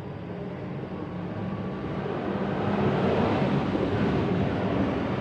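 Steady background rumble with a low hum, growing louder about two seconds in and holding.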